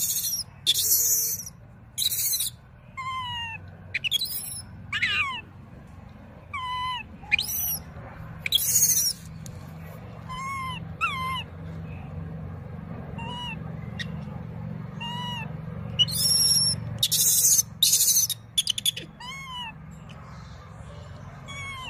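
Infant macaque crying: a string of short, high calls that fall in pitch, one every second or two, broken by several loud, harsh screams, most of them in a cluster about three-quarters of the way through. These are distress cries of a baby macaque that its mother is weaning.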